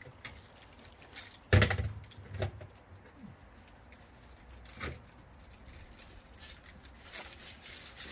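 A sharp, loud thump about one and a half seconds in, followed by two softer knocks, over a quiet outdoor background.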